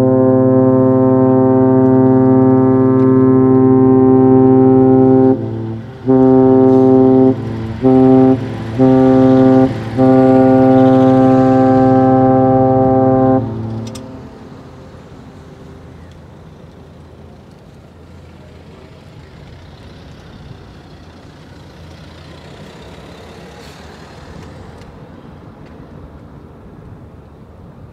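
A cruise ship's horn sounding a single deep, steady note: one long blast, three shorter blasts, then a final long blast of several seconds. After it there is only faint, steady outdoor background noise.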